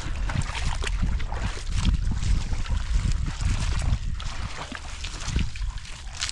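Water splashing and trickling in irregular bursts over a constant low rumble.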